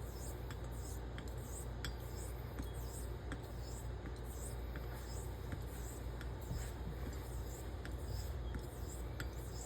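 Straight razor stroked back and forth on a very fine Le Vert coticule with light slurry: a soft, wispy swishing with faint regular ticks, about two a second.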